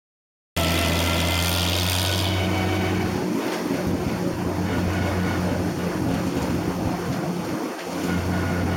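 A farm tractor's engine running steadily at a low, even hum as it tows a passenger wagon down the road, starting about half a second in.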